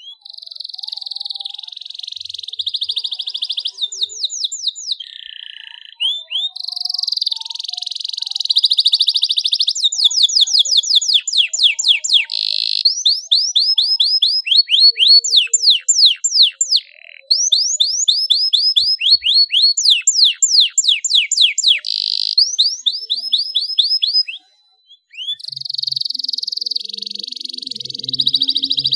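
Domestic canary singing a long, loud song: fast runs of quick downward-sweeping whistled notes alternating with buzzy rolled trills, in phrases broken by a few short pauses.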